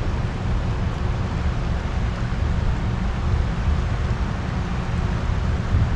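Steady rush of water flowing below a dam spillway in heavy current, with a strong low rumble underneath.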